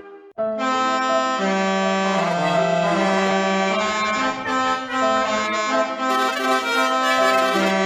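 Musical bus horn playing a tune of held notes that step up and down in pitch, starting after a brief gap about a third of a second in.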